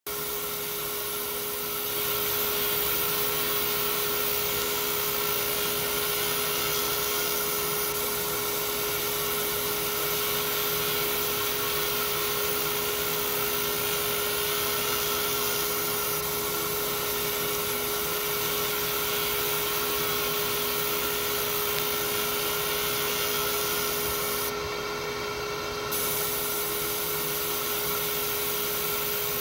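Laser engraving machine running while it engraves a 3D relief into a metal plate: a steady, even hiss over a constant hum-like tone. About 25 seconds in, the high hiss drops away for a second or so, then returns.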